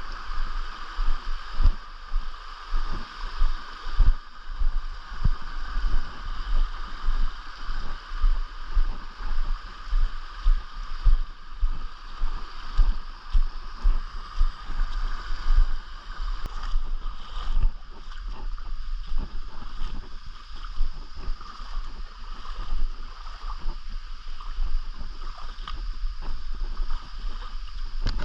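Steady rush of a mountain stream's flowing water, with irregular low thumps on the microphone.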